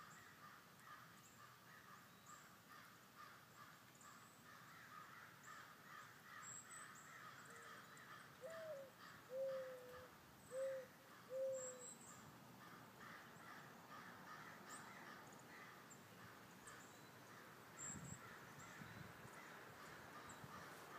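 A crow cawing four times in about three seconds, over a faint, steady outdoor background.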